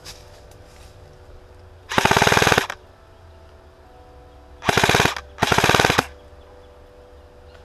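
Airsoft gun firing full-auto: three bursts of rapid shots, one about two seconds in and two close together about five seconds in.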